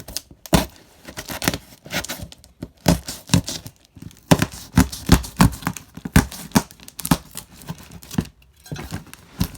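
A cardboard box being torn open by hand: irregular sharp rips and crackles of tape and cardboard, with rustling and knocks.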